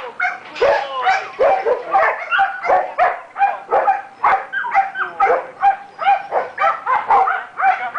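Belgian Malinois and Dutch Shepherd dogs barking excitedly and almost without pause, about two to three sharp barks a second, some with a yelping pitch. This is dogs worked up to play fetch, demanding the ball.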